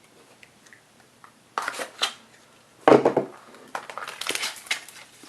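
A trading card pack being opened by hand, its box and wrapper crinkling and tearing in short bursts after a second or so of quiet, then crinkling steadily near the end.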